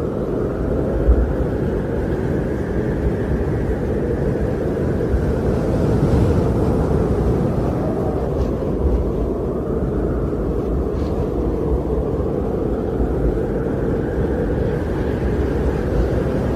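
Strong wind blowing in slow gusts: a steady low rush and rumble with a faint howl that rises and falls in pitch.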